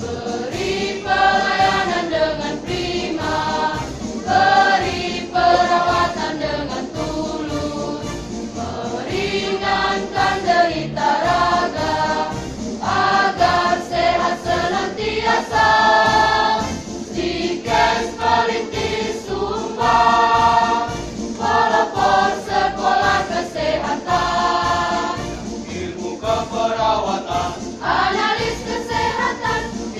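A women's choir singing the college's march anthem (mars), in sustained phrases of a few seconds each that rise and fall in pitch.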